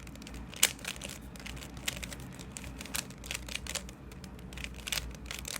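Plastic Rubik's Cube layers being twisted by hand: irregular clicks and clacks, with one sharper click about half a second in.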